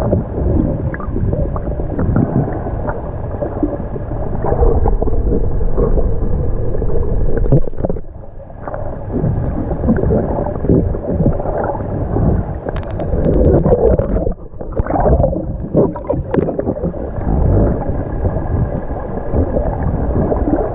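Muffled underwater sound picked up by a camera in the sea: continuous water sloshing and gurgling with irregular surges, dipping briefly about eight seconds in and again around fourteen seconds.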